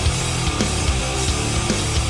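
Loud, aggressive heavy rock music with a pounding drum beat.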